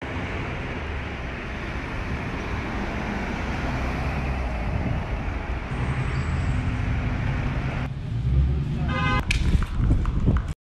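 City street traffic noise: a steady rush of passing cars' tyres and engines. Near the end there is a short, high, horn-like tone.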